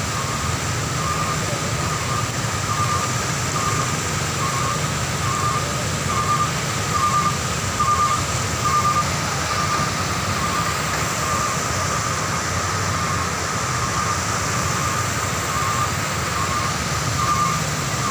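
Floodwater pouring over a road edge in a steady rush, with a truck engine running low underneath. A repeating electronic beep sounds a little over once a second.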